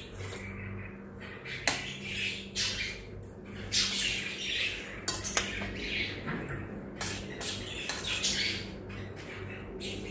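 A steel spoon clinking and scraping on a steel plate, with short slurps as rice gruel is eaten from the spoon, over a steady low hum.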